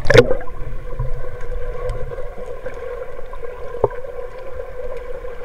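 A short splash of water at the start, then a steady hum over churning water, with one sharp click near the end.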